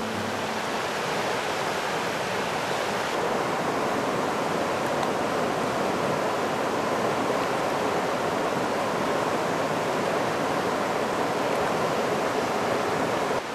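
River rapids rushing over rock: a steady, dense wash of whitewater. An acoustic guitar tune fades out at the very start.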